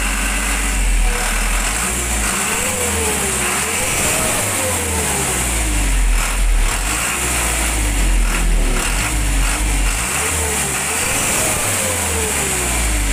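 Isuzu Elf tow truck's diesel engine running, heard from beneath the truck by the exhaust, revved up and back down in two spells, early and again near the end.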